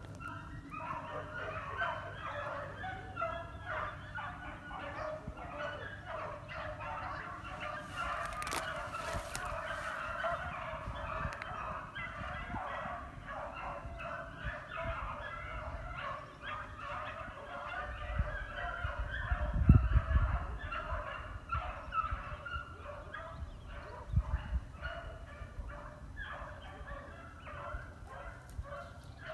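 A pack of beagles baying and yelping together, many voices overlapping in a continuous chorus. Low rumbles on the microphone about two-thirds of the way in are the loudest moment.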